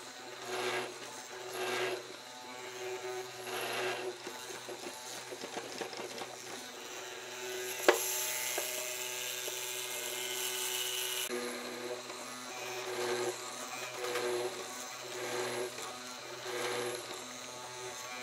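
MQK61A mortising chisel machine running, its hollow square chisel and auger plunging repeatedly into a wooden beam and chewing out chips, with a sharp knock about eight seconds in.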